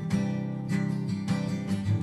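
Acoustic guitar strumming chords, a strum roughly every half second, the chords ringing on between strokes.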